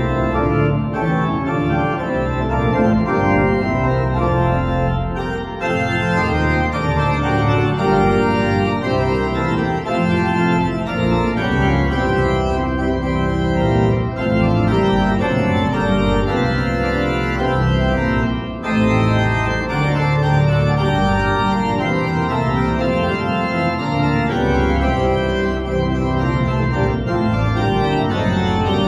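Church pipe organ playing, sustained chords over a strong low bass line, with two brief breaks between phrases.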